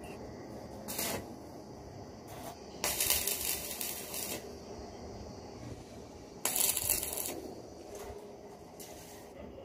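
Stick arc welding on mild steel: two short tack welds, the arc crackling and hissing for about a second and a half, then for about a second.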